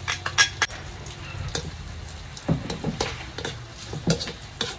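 A metal spoon clinks against a glass bowl as an ingredient is scraped out, then a metal ladle scrapes and taps around a wok, with irregular clicks over a faint sizzle of frying.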